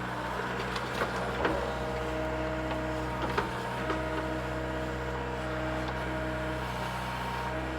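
Mini excavator's diesel engine running steadily, with a hydraulic whine that starts and stops as the controls are worked. There are a few short knocks as the machine handles the stumps.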